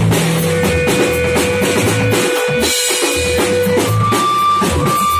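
Live rock band playing loud: a drum kit beating out a steady rhythm under electric guitar and keyboard, with a long held note that jumps to a higher one about four seconds in.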